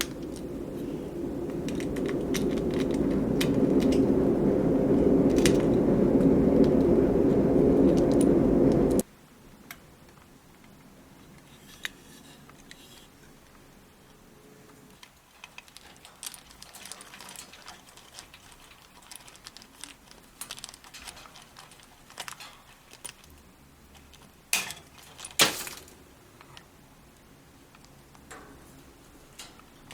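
Parrots chewing and breaking apart a wooden-and-leather toy: scattered sharp clicks, ticks and cracks, with two louder snaps near the end. For the first nine seconds a loud steady rushing noise swells and then cuts off suddenly.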